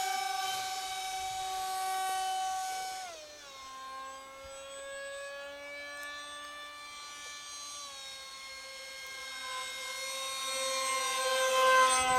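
Radio-controlled model MiG jet flying overhead, its engine giving a steady high whine with many overtones. The pitch drops about three seconds in, holds lower, then climbs again as the sound grows louder near the end.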